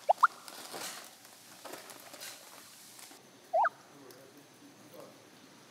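Short high squeaks that rise in pitch: two quick ones right at the start and another quick pair about three and a half seconds in. Between them is faint clatter from handling food and packaging.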